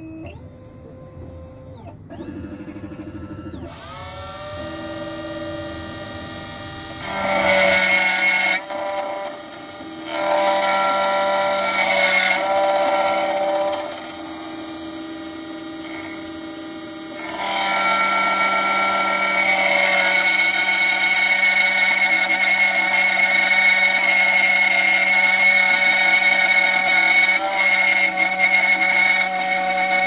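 Sec-9 computerized key-cutting machine milling a high-security key blank: a steady whine from its spindle and end-mill cutter, with several louder stretches of cutting, the last running on to the end.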